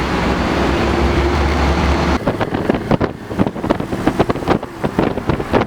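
A vehicle running, a steady low hum with road noise, until it changes abruptly about two seconds in to a stretch of irregular taps and knocks.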